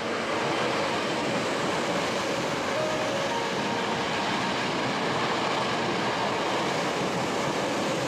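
Hankyu Railway electric train running past a station platform close by: a steady noise of wheels on rail and the train's running gear, getting louder at the start and then holding even.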